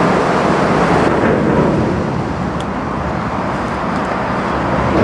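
Steady rushing noise of a mountain bike rolling down a leaf-covered singletrack, mixed with traffic noise from the motorway on the bridge overhead.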